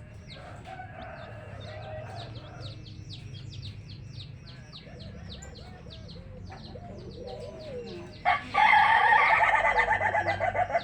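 Baby chicks peeping steadily, about three high, falling peeps a second, with a hen clucking low now and then. About eight seconds in, a chicken gives one loud, long call, likely a rooster crowing, lasting about two and a half seconds.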